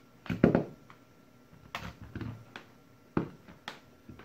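A power cord and its plug being handled on a silicone work mat: a scattering of light clicks and knocks, about six, the loudest about half a second in.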